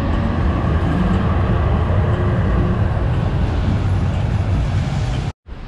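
Red-and-white city tram travelling close by, a steady low rumble of its motor and steel wheels on the rails. The sound cuts off suddenly near the end.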